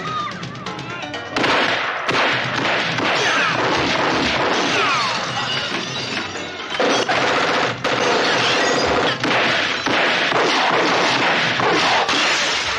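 Film shootout soundtrack: rapid pistol fire with things smashing and breaking apart, over a loud action music score.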